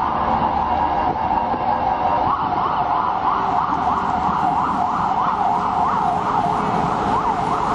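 Emergency vehicle siren sounding in a fast yelp, its pitch sweeping up and down about three times a second from about two seconds in, over steady street noise.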